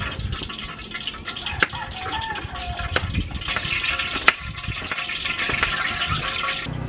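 Tilapia frying in hot oil in a wok, a steady sizzle that cuts off shortly before the end. A few sharp knife taps on a plastic cutting board come through it.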